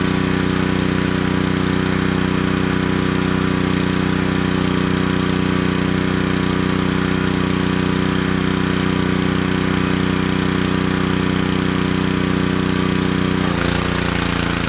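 Honda single-cylinder petrol engine of a Ryobi 3000 PSI pressure washer, running steadily at constant speed. A rushing hiss joins in about a second before the end.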